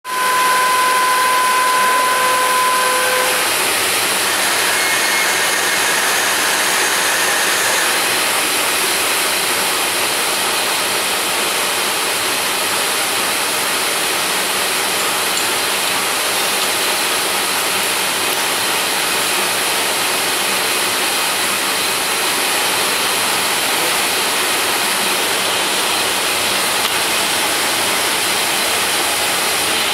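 Radial drill machine running: a loud, steady mechanical hiss, with a pitched whine for the first three seconds or so and a higher whine from about five to eight seconds in.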